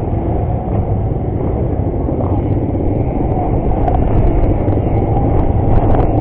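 Honda CRF150 dirt bike's four-stroke single-cylinder engine running at low revs, a steady rumble heard through a helmet camera, getting a little louder near the end.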